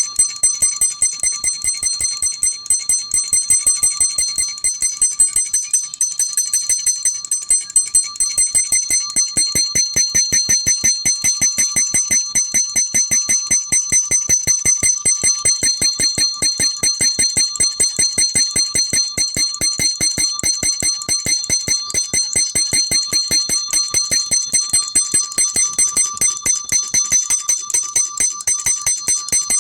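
Early-1800s alarm clock's bell ringing, its hammer striking the bell in a fast, even train while the bell's bright tone rings on between strikes. The strikes are a little uneven in loudness for the first several seconds, then settle into a steady rhythm.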